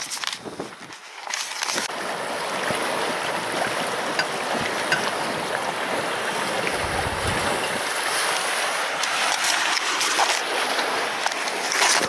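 Steady rush of a fast river riffle heard from an inflatable boat drifting through it, with a few knocks in the first two seconds.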